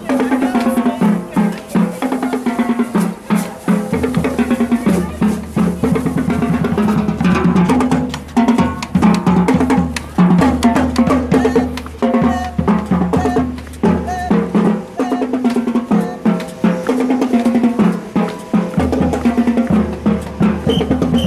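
Marching band drumline playing a street cadence: snare drums with rolls, pitched tenor and bass drums in a steady marching rhythm.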